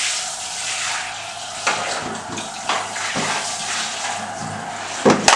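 Water running steadily from a tap, with a few sharp splashes or knocks, the loudest near the end.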